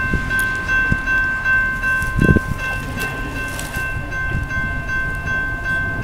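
Railroad crossing warning bell ringing in a steady, even rhythm of about three strikes a second as the crossing gates come down, signalling an approaching train. A low rumble runs underneath, with a brief louder low rumble about two seconds in.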